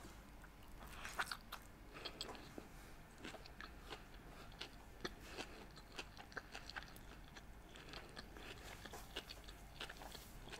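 Faint chewing of a mouthful of sushi, with small wet clicks and smacks from the mouth; the loudest come about a second in.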